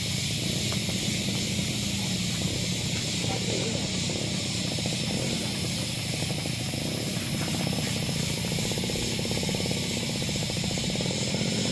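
Steady low engine rumble from vehicles on a muddy dirt road, under a constant high-pitched hiss.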